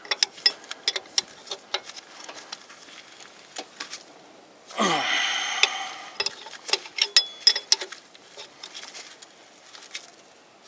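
Hand tools clicking and clinking on metal in irregular bursts while a gauge sending unit is worked into its port on a 1986 Ford F-150 engine, bunched closely about seven seconds in. About five seconds in there is a short vocal sound falling in pitch.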